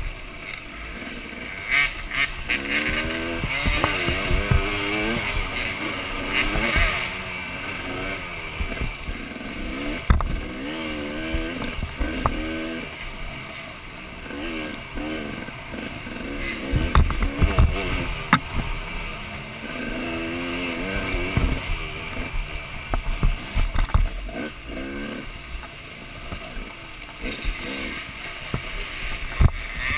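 Off-road motorcycle engine heard close up from the bike itself, revving up and down over and over as it is ridden along a rough trail. Scattered knocks and thumps come from the bike jolting over bumps.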